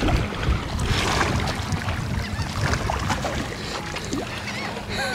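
Wind rumbling on the microphone over water washing against shoreline rocks, with a steady low hum under it. A few faint chirps come near the end.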